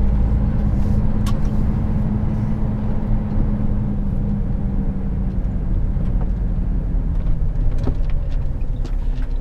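Diesel engine of a semi-truck tractor heard from inside the cab while driving slowly, a steady low drone that eases off about halfway through. A couple of light clicks come through over it.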